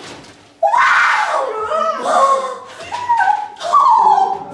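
A person's voice giving several high, drawn-out wailing cries one after another, howl-like rather than spoken words, starting about half a second in.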